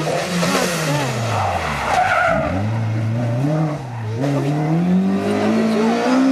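Rally car engine dropping in revs as it brakes for a bend, with a brief tyre squeal about two seconds in. It then accelerates hard away, the revs climbing through a gear change.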